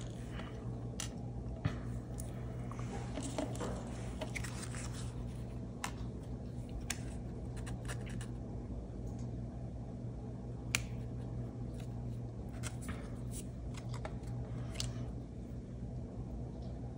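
Quiet handling of a cardstock greeting card, with a handful of light clicks and taps as small metal brads are pushed through the card and their prongs pressed flat on the back.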